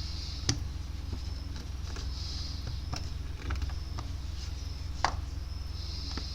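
A few short, sharp knocks and clicks of front brake parts and tools being handled and set down, over a steady low hum.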